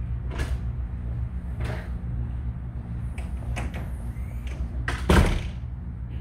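A few short knocks over a steady low hum, ending in a louder thump about five seconds in.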